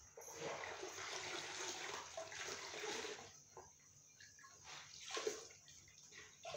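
Water sloshing in a plastic bucket as a floor-mopping cloth is dunked and worked in it, then short splashes and trickles as the cloth is wrung out over the bucket.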